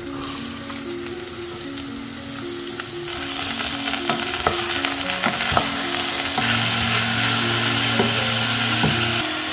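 Chopped onion and diced carrot frying in a steel pot, sizzling and growing louder about three seconds in as they are stirred with a wooden spatula, which clicks against the pot several times.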